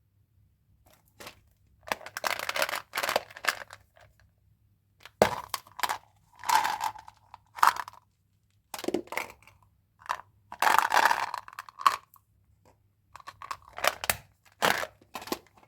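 Candy wrappers being crinkled and torn open by hand, in several irregular bursts of rustling with quiet pauses between.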